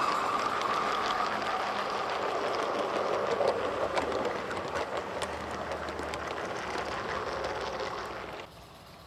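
Garden-scale live-steam train passing, its coaches rolling by with the wheels clicking on the track. The sound fades as the train moves off, then drops away suddenly near the end.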